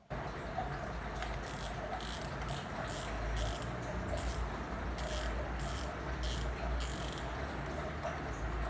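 Fishing reel's clicker ratchet rattling continuously as the spool turns, loud, with repeated stronger surges of the clicking in the middle stretch.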